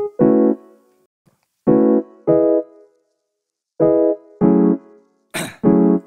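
Background music: short piano chords played as separate stabs with brief silences between them, about six in all, and a short hiss near the end.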